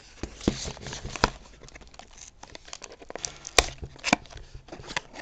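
Box and packaging being opened and handled: crinkling and rustling, with several sharp clicks and knocks.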